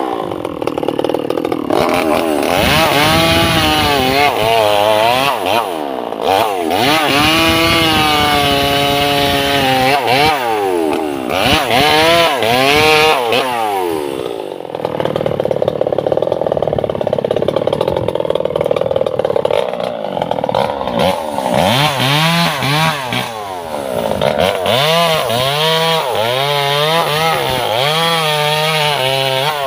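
Two-stroke chainsaw cutting through sengon logs, its engine revved up and down over and over so the pitch keeps rising and falling. For several seconds in the middle it settles into a steadier, lower-toned run before climbing again in the cuts.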